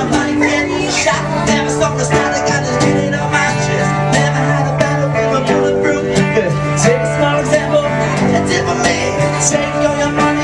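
A band playing continuous, upbeat music with plucked string instruments.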